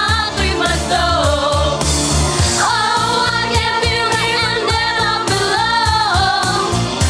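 Girls' vocal ensemble singing a pop song in several voices over a backing track with a steady beat.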